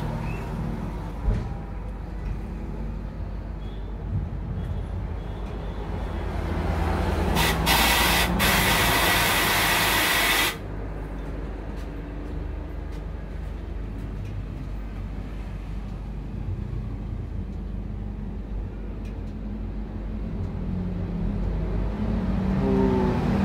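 A loud hiss of compressed air for about three seconds, stopping abruptly, over a steady low mechanical drone.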